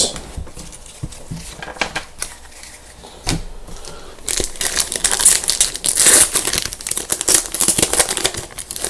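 A trading card pack's wrapper being torn open and crinkled, dense crackling starting a little over four seconds in, after a few scattered clicks of cards being handled.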